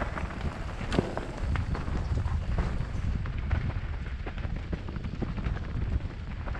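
Mountain bike riding fast down a dry dirt singletrack: wind rumbling on the microphone and tyres rolling over the ground, with frequent knocks and rattles from the bike over bumps and one sharp knock about a second in.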